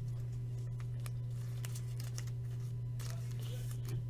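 A steady low hum, with a few faint, brief clicks and rustles of trading cards and wrappers being handled.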